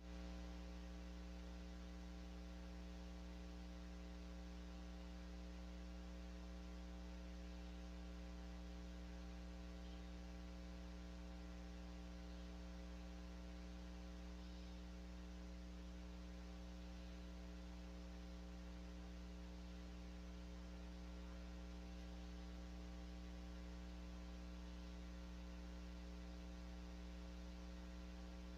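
Faint, steady electrical hum with a light hiss behind it, the kind of mains hum a recording device or nearby appliance picks up.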